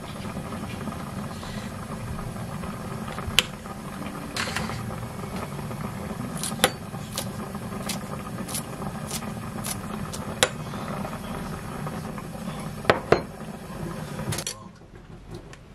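Kitchen prep sounds over a steady low hum: sharp clicks as a boiled egg is pressed through a wire egg slicer, then a run of crisp snips as kitchen scissors cut green onion. The hum stops shortly before the end, leaving quieter stirring in a glass bowl.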